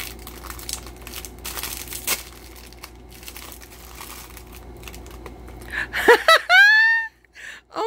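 Plastic wrapping crinkling and crackling irregularly as hands unwrap a small toy. About six seconds in, a high voice briefly calls out with a rising and falling pitch, louder than the crinkling.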